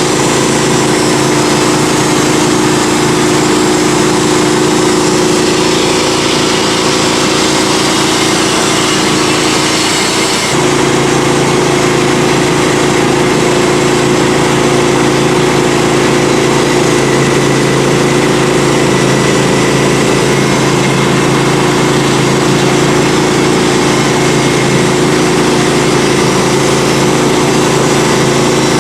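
Norwood HD38 portable band sawmill running steadily while milling a red oak log: the sawmill's engine and band blade make a constant mechanical drone. About ten seconds in the sound changes abruptly, the high hiss falling away, and it then runs on steadily.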